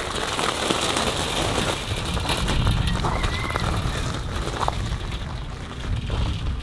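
Bicycle tyres crunching over loose gravel as the bike is pushed off and ridden away, with wind rumbling on the microphone.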